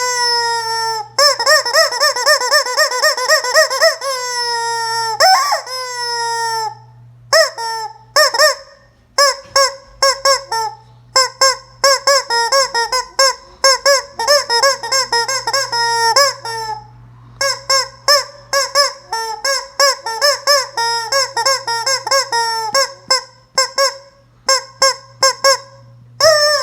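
Screaming rubber chicken toy being squeezed again and again. A long, wavering scream comes near the start, then another, and after that runs of short squawks, several a second.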